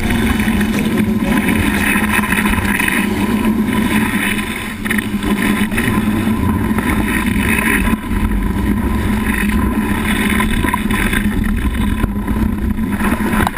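Steady rush of water and spray as a board skims across the water behind a tow rope, with wind buffeting the microphone.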